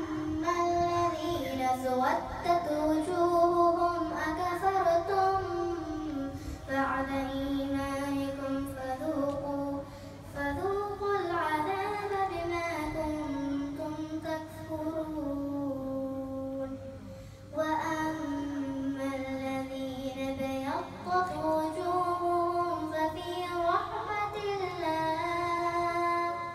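A young girl's voice reciting the Quran in Arabic, chanted melodically in long held phrases with gliding, ornamented pitch, and brief pauses for breath between verses.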